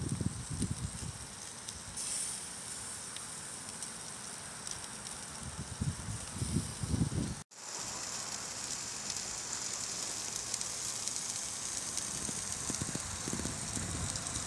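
Bone-in ribeye steak sizzling on a charcoal grill, a steady hiss with fine crackles and pops from the fat. The sound drops out for an instant about halfway through, then carries on.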